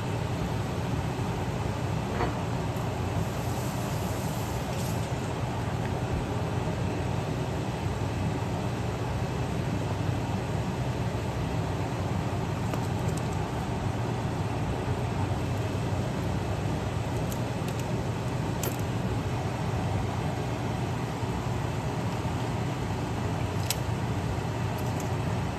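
Kitchen range-hood exhaust fan running with a steady, even hum, and a few faint clicks over it.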